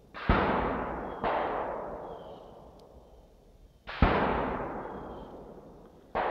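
Gunshots, four sharp reports spread unevenly over several seconds, each followed by a long echo that fades away through the woods.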